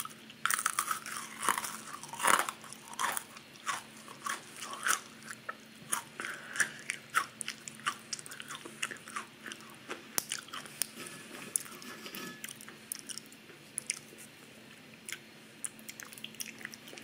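Crackers with cream cheese being bitten and crunched close to the microphone: a run of loud crunches in the first few seconds, then steadier chewing with smaller clicks that grow sparser near the end.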